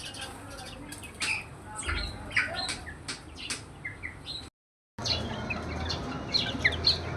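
Birds chirping and squawking in a rapid run of short, high calls, with the audio cutting out for about half a second midway.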